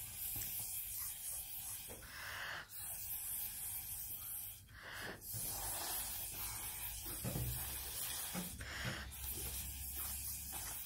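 Breath blown through drinking straws: a soft airy hiss with a few stronger puffs, as drops of wet watercolour paint are blown across paper.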